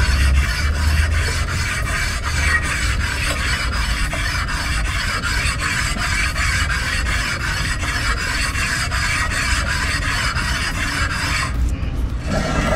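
Continuous rasping scrape, like a file or abrasive worked over a hard surface, which stops about eleven and a half seconds in.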